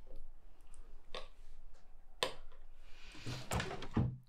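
A few sharp clicks of cutlery on dinner plates, then near the end a scraping rustle and a couple of low knocks as a chair is pushed back and someone stands up from the table.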